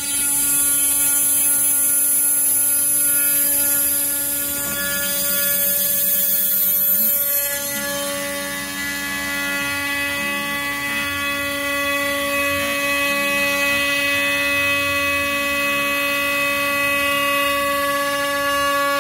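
Water-cooled 1.5 kW CNC router spindle driving a quarter-inch three-flute carbide end mill through aluminium plate: a steady whine with several pitches over the hiss of the cut. The high hiss eases and the ringing shifts about eight seconds in.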